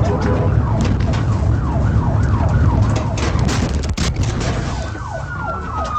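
Police car siren on a rapid yelp, its tone sweeping down in pitch about three times a second, over heavy engine and road rumble. About five seconds in, a slower siren wail begins, falling steadily.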